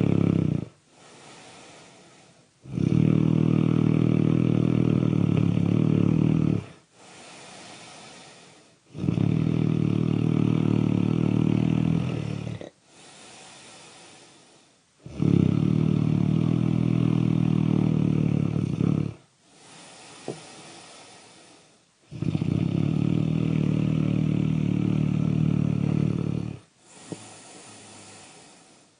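Really loud, deep snoring in a slow, regular rhythm. Each rumbling snore lasts about four seconds and is followed by a softer breath of about two seconds, about five times over.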